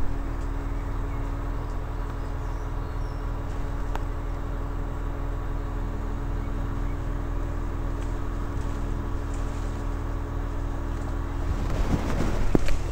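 Crane engine running steadily at a constant pitch, a low even hum while the crane holds and moves a tree section. A few irregular rustles and knocks near the end.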